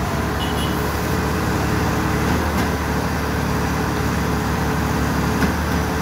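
Steady engine drone from a self-loading concrete mixer truck and a concrete pump working together, the mixer drum turning to discharge concrete down its chute into the pump hopper.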